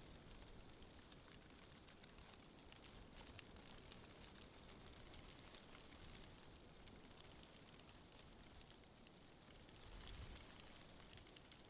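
Faint wind rustling through tree leaves, a steady hiss with light crackles, swelling briefly about ten seconds in.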